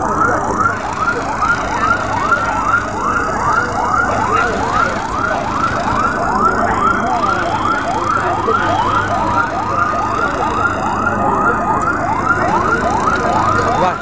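Emergency vehicle siren in fast yelp mode, a rising sweep repeating about three times a second. A steady tone joins it in the later part.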